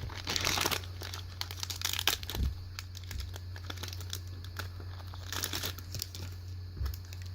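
A Magic: The Gathering booster pack's foil wrapper being torn open and crinkled, in irregular bursts of crackling, loudest in the first second, about two seconds in and about five and a half seconds in. A steady low hum runs underneath.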